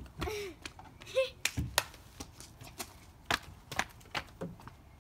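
Irregular sharp knocks and taps, about ten of them, from children climbing and moving on a plastic backyard play structure with a slide.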